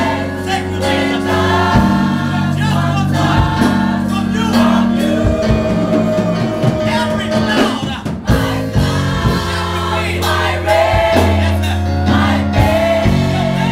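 Gospel choir of men's and women's voices singing through microphones over sustained low accompanying notes that change every second or two, with a lead voice out in front.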